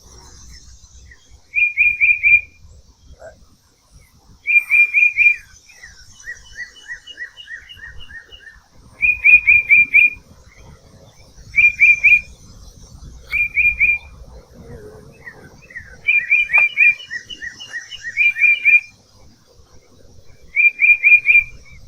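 Songbirds singing. Loud phrases of three or four quick high notes come every couple of seconds, with slower runs of evenly spaced lower notes between them.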